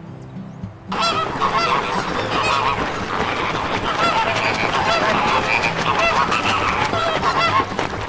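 A large flock of flamingos honking in a dense, loud chorus of many overlapping short calls, starting abruptly about a second in.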